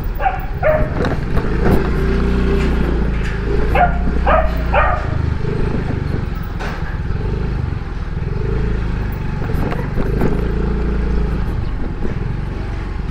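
Motorcycle engine running steadily, with a dog barking several times in the first five seconds.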